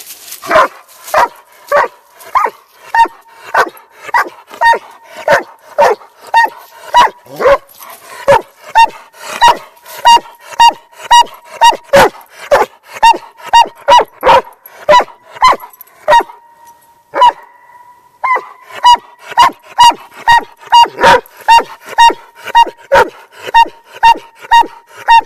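A hundred-pound Doberman barking close up, a steady train of short, sharp barks at nearly two a second, with one short break about two-thirds of the way through.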